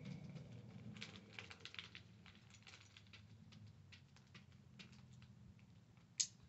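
Small plastic Lego pieces clicking and rattling as they are handled and pressed together, with one sharp, louder snap near the end.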